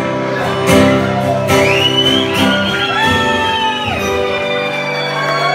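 Amplified acoustic guitar strumming and ringing out chords live on stage. About a second and a half in, a long high vocal cry rises over it, holds for a couple of seconds and falls away.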